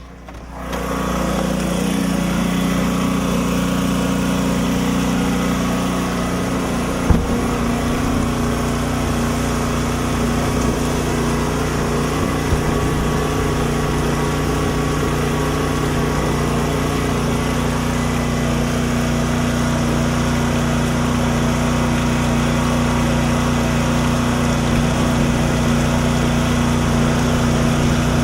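A small engine running steadily at a constant speed, with one sharp knock about seven seconds in.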